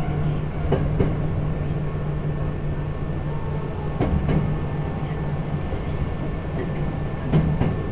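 Hankyu Railway electric train running at steady speed: a steady drone of the running gear with rolling noise, and a few wheel clicks over rail joints.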